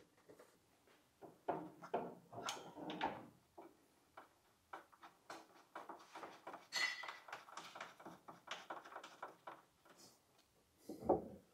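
Light knocks, clicks and scraping rubs of a carbon fibre front body panel being handled and pressed into place against a car's front end, in scattered bursts with a duller knock near the end.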